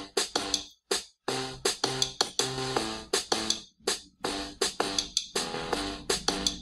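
Background outro music with a steady beat and short melodic notes, cutting out briefly about a second in and again near four seconds.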